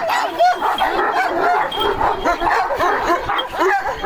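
Kangal dogs barking at each other in a rapid, unbroken string of barks, the calls overlapping several times a second.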